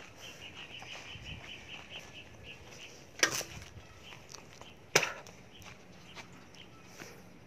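Two sharp knocks a couple of seconds apart, over a quiet outdoor background with a quick run of short high chirps in the first two seconds.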